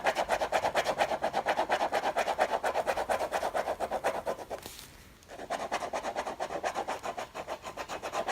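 A drawing tool scribbling rapidly back and forth on paper to colour in a shape, about ten strokes a second, with a short pause about halfway through.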